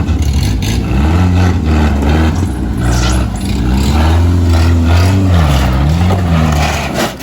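Bass-heavy music blasting from a car sound system, with a deep, steady low end under a gliding melody line. It drops in level near the end.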